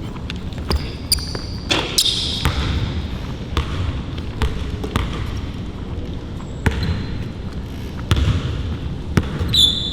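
A basketball bouncing on a court in irregular dribbles, with a few short sneaker squeaks during play.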